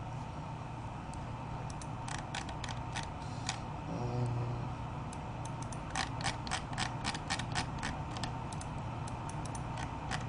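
Typing on a computer keyboard: irregular sharp key clicks, a short flurry about two seconds in and a longer, quicker run from about six seconds in, over a steady low hum.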